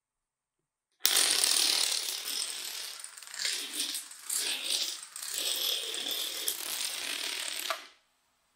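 A long chain of small domino blocks toppling one after another: a fast, dense clatter of clicks that starts suddenly about a second in and stops abruptly near the end.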